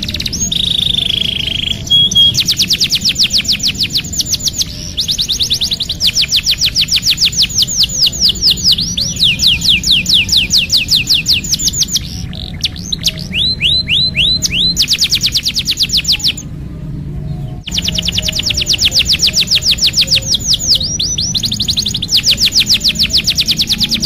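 Domestic canary singing long rolling trills: fast trains of repeated sweeping notes, about eight to ten a second, in phrases that change speed and pitch, with a short pause about two-thirds of the way through.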